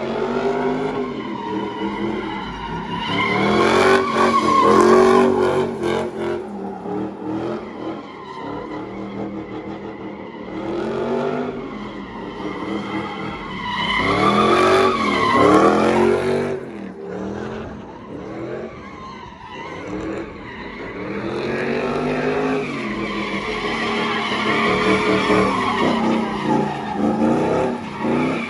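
Car engine revving hard over and over, its pitch climbing and dropping in repeated swells, with tires squealing.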